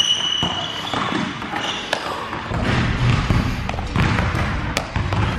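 Running approach and dunk on an indoor gym court: a high sneaker squeak at the start, footfalls on the floor, and a few sharp thuds from the jump, the rim and the landing.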